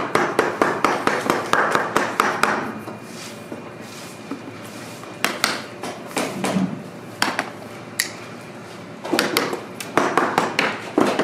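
A cobbler's hammer tapping the bottom of a boot held on a last during lasting. There is a quick run of sharp taps, about four or five a second, for the first two and a half seconds, then a few single taps, then another run near the end.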